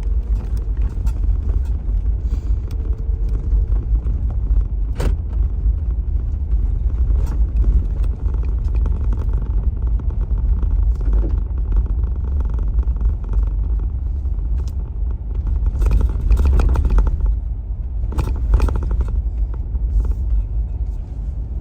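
Car driving, heard from inside: a steady low road rumble with a few knocks and rattles from bumps along the way.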